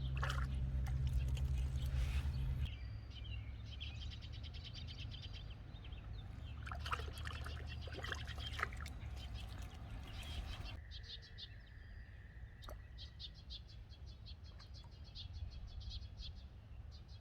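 Songbirds chirping and calling in repeated short high notes, busiest about halfway through, with one held whistled note a little later. A low rumble underlies the first few seconds.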